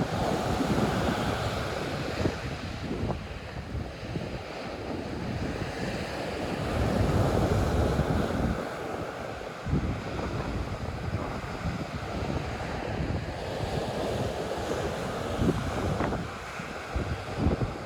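Sea surf breaking and washing in on a beach, rising and falling in swells, with wind buffeting the microphone.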